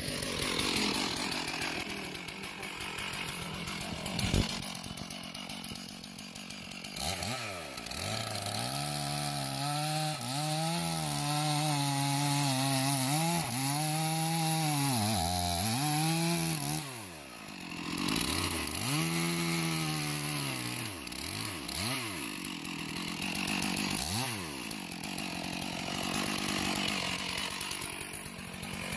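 Two-stroke chainsaw cutting into a standing tree's trunk to fell it. The engine pitch rises and falls again and again as the chain goes in under load and the throttle is worked, with a short drop in speed about halfway through.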